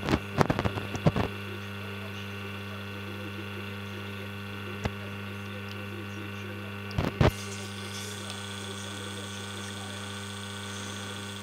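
Reverse-osmosis water filter unit running after being switched on, giving a steady electrical hum. A few sharp clicks and knocks come in the first second and again about seven seconds in.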